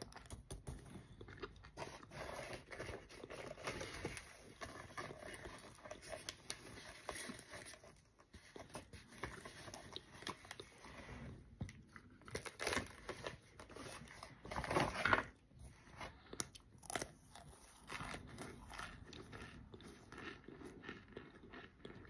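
Close-up biting and chewing of a microwaved cornstarch chunk, a soft, airy crunch crackling with each bite, with short pauses and a louder crunch about fifteen seconds in.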